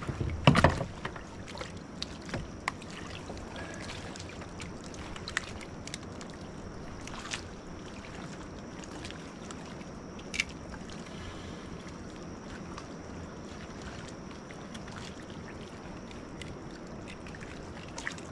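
Steady rushing of a river flowing past. A loud thump about half a second in, then a few scattered sharp clicks and knocks.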